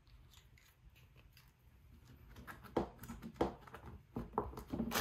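Handling noises of a plastic gun case and its contents: faint plastic clicks as a grease tube is capped, then from about halfway a run of louder clicks, knocks and plastic rustling as the tube is set into the foam-lined case beside the bagged pistol.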